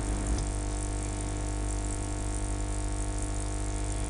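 Background music of steady held notes with no changes, under the pause in the narration.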